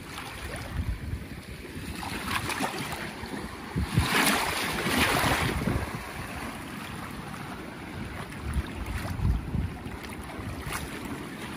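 Shallow surf washing and lapping in the shallows, with wind buffeting the microphone. A louder wash of water comes through about four seconds in and lasts a second or so.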